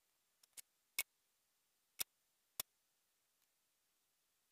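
Five short, sharp ticks, irregularly spaced, over near silence.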